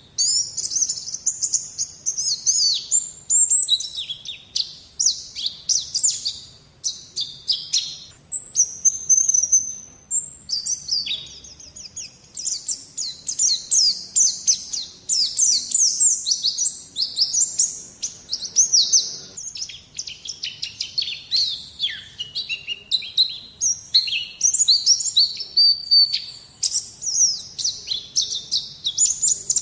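White-eye (pleci) song: a fast, unbroken stream of high chirps and twittering trills. It is a masteran tutor recording, played to draw young birds into song.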